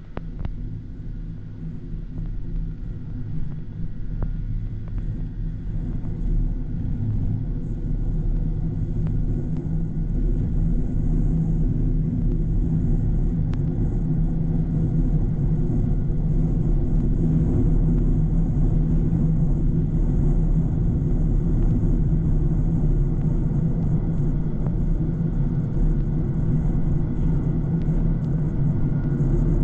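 Snowmobile engine and track running along a groomed trail: a steady low drone that grows louder over the first ten seconds or so, then holds level.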